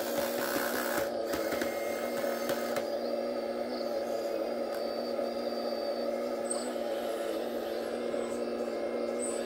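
Radio-controlled Kobelco model excavator running with a steady, even whine from its drive, while its bucket digs into soil. A rougher scraping noise over the first three seconds marks the bucket working through the dirt.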